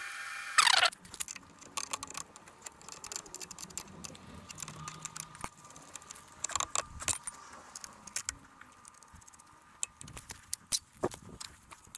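Metal hand tools clinking and tapping, spanner and socket pieces knocking against a wheelchair wheel's bolts as the wheel is being taken off its drive motor: many short, light clicks. Under a second in, a steady sound ends with one loud knock.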